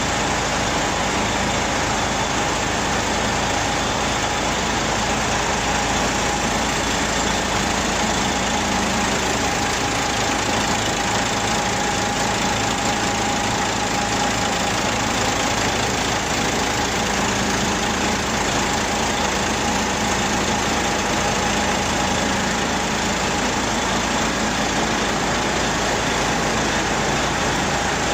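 DAF 105 truck diesel engine idling steadily, running again after its injectors and fuel pump sections were refitted.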